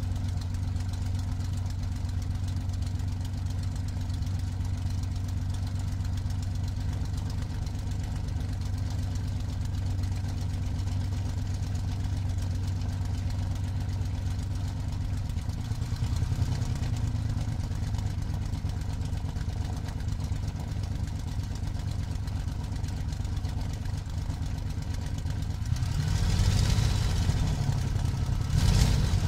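Daimler-Benz DB605 inverted V12 of a Messerschmitt Bf109G-2, heard from inside the cockpit, running steadily at low power on the ground. The note shifts and grows a little louder about halfway through. Near the end, a short burst of power makes the engine note rise and fall: power being used with differential braking to turn the aircraft.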